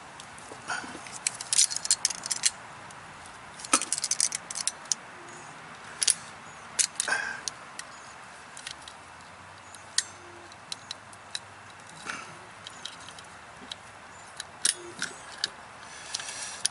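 Metal hand tools clinking and clicking as pliers are handled and worked together: a string of sharp, irregular metallic clicks and short jingles.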